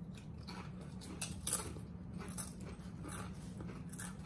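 Doritos tortilla chips crunching, a scattering of faint, crisp crackles as the chips are chewed and picked from the bowl, over a low steady hum.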